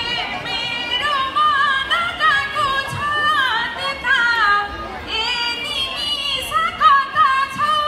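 A woman singing a folk-style melody in a high voice, amplified in a hall, in bending, ornamented phrases with a short break about five seconds in.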